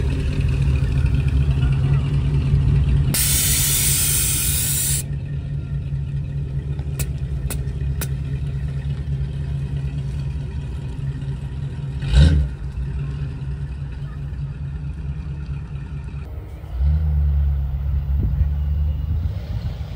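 Big classic American car's engine running at low speed as it pulls away, a steady low rumble. A brief hiss comes a few seconds in, and a single thump about twelve seconds in. The engine gets louder near the end as the car accelerates away.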